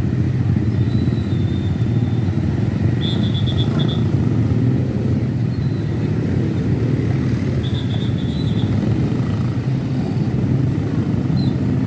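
Steady low engine rumble of heavy road traffic, with two short bursts of rapid high-pitched chirping about three and eight seconds in.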